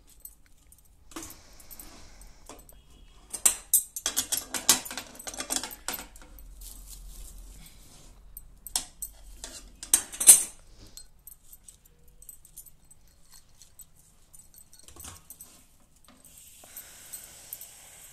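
A hand scraping and scooping jaggery-coated puffed rice in a steel kadhai, with bangles jingling against the pan. There are clusters of rustling and clinking about three to six seconds in and again around nine to ten seconds, and a steady hiss begins near the end.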